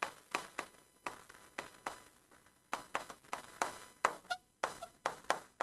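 Pen strokes on an interactive smart-board's glass screen as a word is written: a run of short, quiet scratches and taps, a few in the second half with a faint brief squeak.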